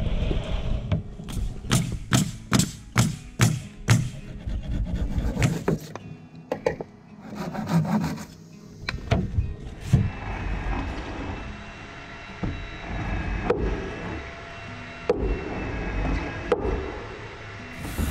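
Hand-tool work on wood: a fast run of sharp strokes, about three a second, for several seconds, then quieter scattered knocks.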